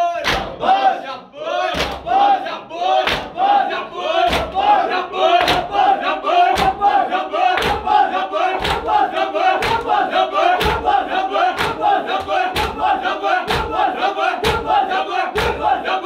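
Group of men chanting a mourning lament in unison while beating their chests with their hands (matam) in a steady rhythm. The slaps quicken from about one a second to about two a second around the middle.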